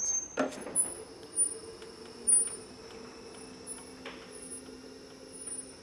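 Vehicle lift lowering a car: a steady low hum with a high hiss, and a few clicks and knocks in the first couple of seconds.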